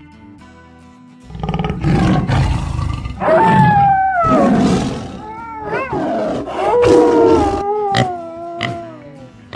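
Tiger sound effect, a loud roar, followed by several animal calls that slide down in pitch, over background music.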